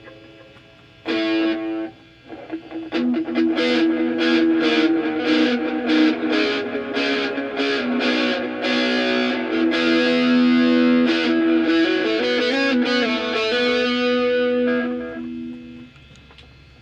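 Electric guitar played through a Mosky distortion pedal. One distorted chord is struck about a second in and cut short. Then, from about three seconds in, a run of struck chords and notes with thick, sustained distortion goes on until it stops about a second before the end.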